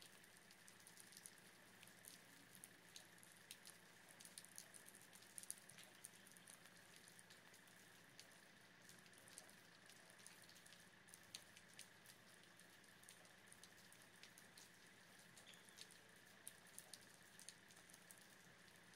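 Near silence, with faint irregular drips of meltwater ticking many times over a faint steady high tone.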